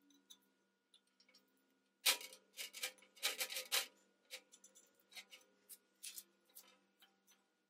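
Steel scribe scratching through masking tape wrapped on a steel pipe: a dense run of short scratchy strokes about two seconds in, then scattered light ticks and rubs.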